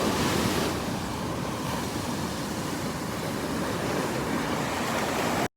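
Heavy surf washing onto the beach with wind buffeting the microphone, a steady rushing noise that cuts off suddenly near the end.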